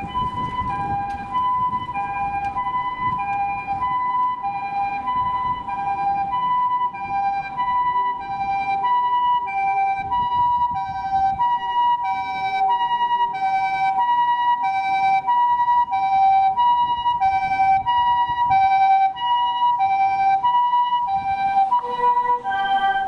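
Japanese ambulance's electronic two-tone "pee-poh" siren, a higher and a lower tone alternating steadily about every half second and slowly getting louder, over road rumble. Near the end the siren's sound changes as a lower tone joins in: the switch to the softer harmonic siren mode.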